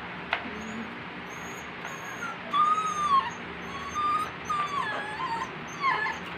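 A puppy whimpering: a run of short, high whines that waver up and down, starting a couple of seconds in and recurring through the rest. A single sharp click comes just before them.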